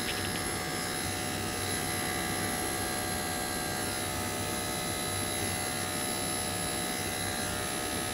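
Electric dog grooming clippers running steadily with an even, unchanging hum, held close to a puppy's head.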